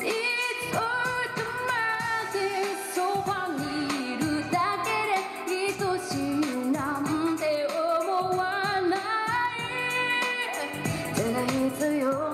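A female vocalist singing a pop song live into a handheld microphone over backing music with a steady beat.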